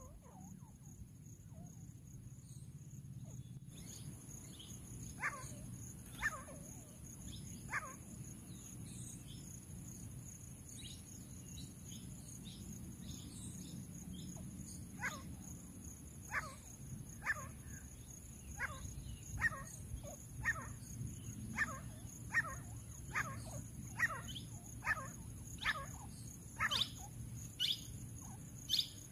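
Grey francolin calling: a series of short, sharp calls, a few scattered at first, then repeating about once a second from midway and growing slightly faster toward the end.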